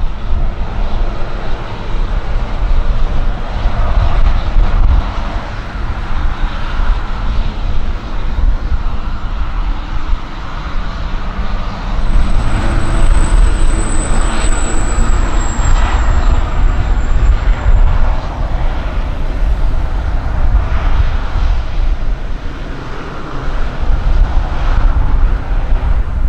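A small business jet's engines during its takeoff roll at a distance, then the two turboprop engines of a Shorts 360 running as it taxis onto the runway, with a high steady whine for several seconds around midway that falls slightly in pitch. A low rumble of wind on the microphone runs underneath.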